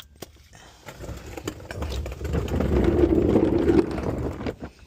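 A passing motor vehicle, its noise swelling over a couple of seconds and fading again, with a few light clicks mixed in.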